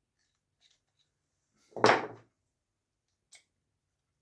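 A single knock of tool parts being handled, a little under two seconds in, with a few faint clicks around it.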